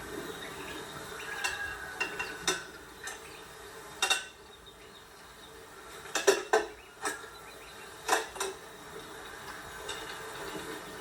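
Cutlery and dishes clinking: irregular knocks and clinks of metal on crockery, about a dozen scattered through, the loudest a quick cluster about six seconds in.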